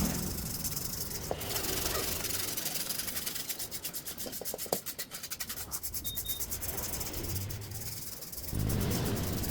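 Rapid back-and-forth rubbing strokes on a surface, with a quick steady run of strokes in the middle.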